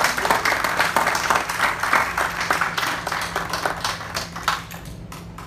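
Audience clapping in applause, which thins out and dies away near the end.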